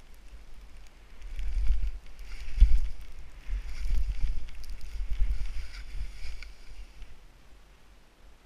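Skis hissing through powder snow while wind rumbles on the microphone during a fast descent. Both swell from about a second and a half in, are loudest a little before the three-second mark, and die down near the end.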